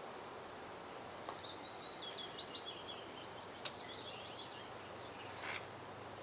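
A songbird singing a long run of quick, high, chirping notes that step down in pitch, over a steady outdoor background hiss. There is one sharp click about three and a half seconds in.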